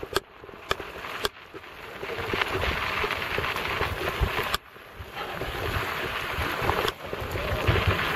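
Wind rushing over the camera microphone and the rattle of a mountain bike rolling fast downhill on a dirt trail, with knocks as it goes over bumps.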